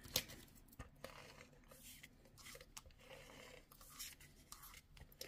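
Faint scratchy strokes of a Stampin' Seal adhesive tape runner pressed and drawn across cardstock, laying down tape, with a sharp click just after the start.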